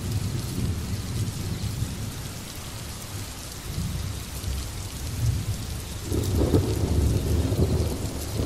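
Rain falling steadily with rolling thunder, and a louder, longer roll of thunder starting about six seconds in.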